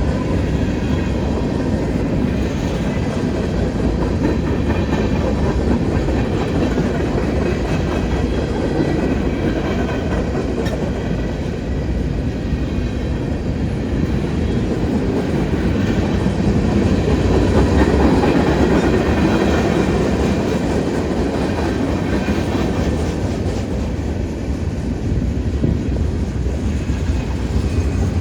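Freight cars of a manifest train rolling steadily over a grade crossing: continuous wheel rumble and rattle with clickety-clack over the rail joints, swelling a little past the middle.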